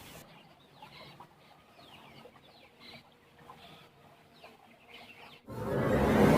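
Faint, repeated short high chirps, each sliding down in pitch. About five and a half seconds in, a loud rising whoosh cuts in and leads into music.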